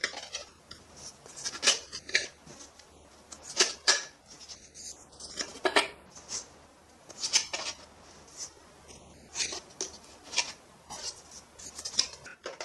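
Irregular plastic clicks, rattles and scrapes of a toy dart blaster's orange plastic magazine being handled and loaded with foam darts.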